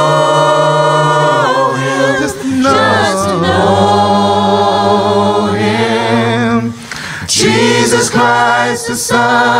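A man singing a gospel worship song unaccompanied, holding long notes with vibrato.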